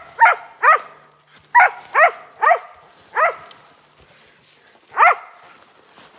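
West Siberian Laika barking at a bear it has treed: about seven sharp barks in uneven bunches, with a gap of nearly two seconds before the last one.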